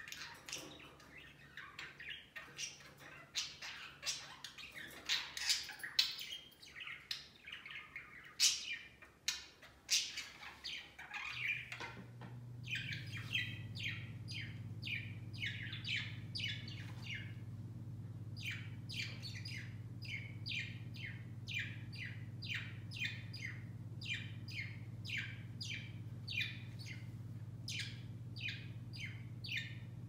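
Budgerigars chattering with irregular chirps and warbles. About halfway through a steady low hum starts, and the birds settle into short, evenly repeated chirps, about two a second.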